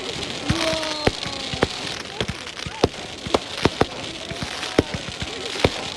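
Fireworks going off: many sharp pops and bangs at irregular intervals, several a second, over a steady crackling hiss.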